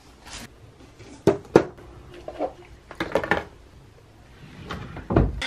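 Cosmetic boxes and bottles being set down and shuffled in a drawer: a few light knocks and clatters, with a low thump near the end.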